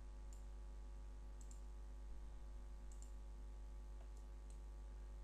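Several faint computer mouse clicks, some in quick pairs, over a steady low electrical hum.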